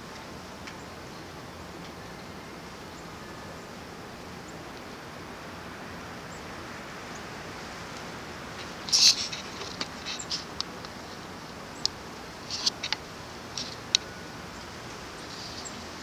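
Steady wind noise from a blowing snowstorm, with a run of short, sharp high-pitched ticks between about nine and fourteen seconds in, the loudest around nine seconds.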